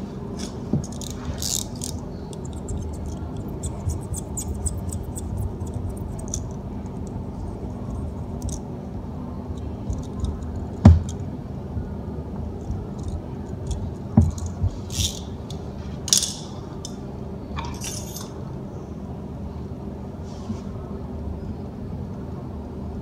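Small hand tools of a tyre plug kit clicking, tapping and scraping against the motorcycle tyre while the plug is worked in and trimmed, with one sharp knock about eleven seconds in. A steady low hum runs underneath.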